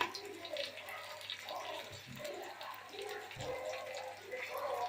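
Chopped onions sizzling in hot oil in a pan, with a spoon stirring and scraping against the pan in scattered clicks.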